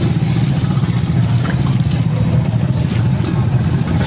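A vehicle engine running steadily close by: a loud, unchanging low rumble.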